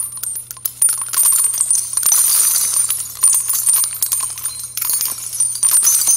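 Title-card transition sound effect: a dense, continuous jingling and clinking of small metallic tinkles, like coins or little bells shaken together, over a steady low hum.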